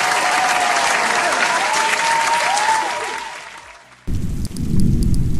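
Crowd applauding and cheering, fading out over about three and a half seconds. About four seconds in, a low rumbling noise starts suddenly.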